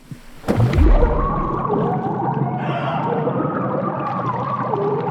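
Film sound design: a sudden deep boom that drops in pitch just after half a second in, then a dense wash of wavering, gliding tones over a steady rumble.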